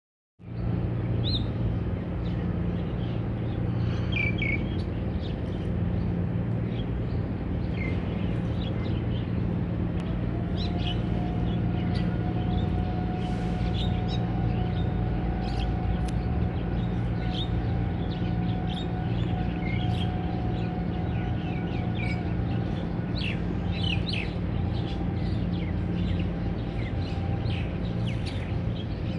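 Birds chirping in short, scattered calls over a steady low hum, with a faint steady tone through the middle stretch.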